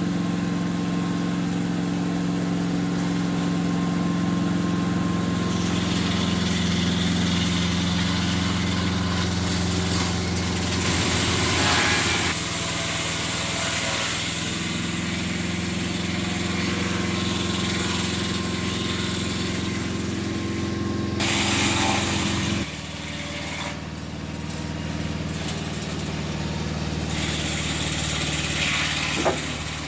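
Gasoline-powered saw milling a cedar log, its engine running steadily under load. The engine note shifts about twelve seconds in and drops lower and quieter about twenty-three seconds in, as if the throttle eases off.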